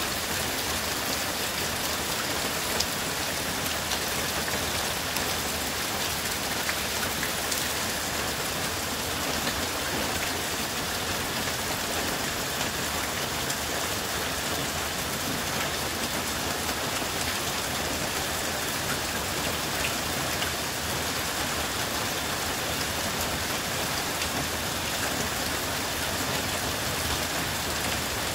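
Heavy downpour, about an inch an hour, falling onto a sheet of shallow floodwater and wet leaves: a steady, dense hiss of rain with a fine patter of individual drops.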